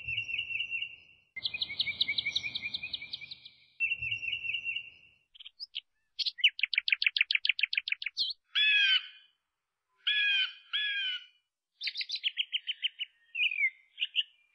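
A run of high, bird-like chirping and trilling sound effects, several different ones in turn with short pauses between them: rapid pulsing tones, fast trills, and paired curving chirps.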